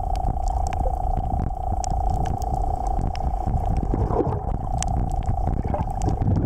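Underwater sound through a submerged camera: a steady low rumble of surging water with a constant hum, scattered sharp clicks, and a brief gurgling swirl about four seconds in.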